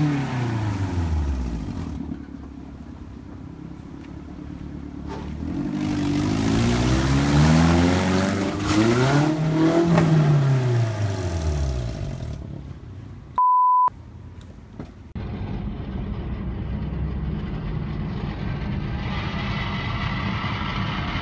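Car engines at a street intersection: one passes with its note falling in pitch, then an engine revs up and falls back, swelling and fading as a car swings through the intersection. A short steady beep follows, then steady road and tyre noise heard from inside a moving car.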